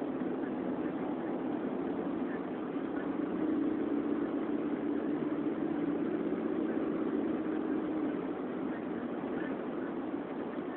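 Steady engine hum and road noise of a moving car, heard from inside its cabin, a little louder in the middle.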